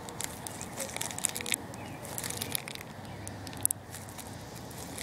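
Scattered small metallic clicks and scrapes of a piston wrist-pin circlip being worked into a two-stroke piston by hand, with one sharper click a little past halfway.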